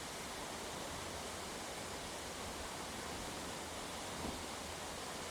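Steady, even hiss of forest background noise, with no distinct event apart from a faint short sound about four seconds in.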